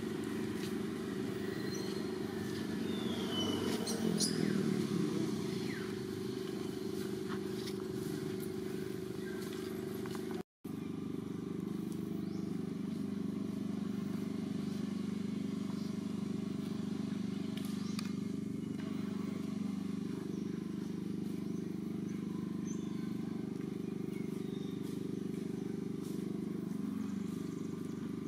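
Steady low drone of a motor engine running, like a vehicle or motorbike nearby, with a few faint high chirps in the first seconds. The sound cuts out for a split second about ten seconds in.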